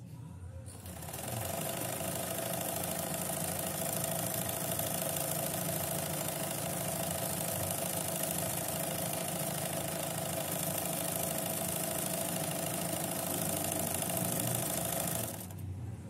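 Yamazaki Bluebird 1200 all-metal sewing machine running steadily on its electric motor, stitching through denim. It starts about a second in and stops shortly before the end.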